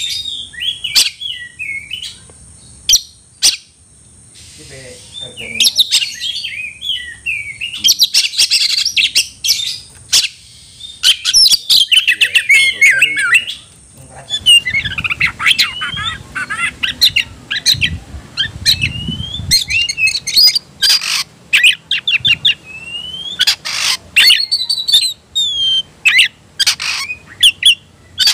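Caged oriental magpie-robin (kacer) singing hard and without pause: a dense stream of whistled phrases gliding up and down, broken by many short, sharp notes. This is the heated song of a male in fighting mood, challenging a rival.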